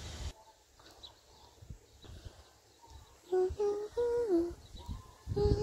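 A person humming a few short notes of a tune, stepping up in pitch and then sliding down, about halfway in, and starting another hummed note near the end. A low rumbling noise on the microphone stops suddenly just after the start.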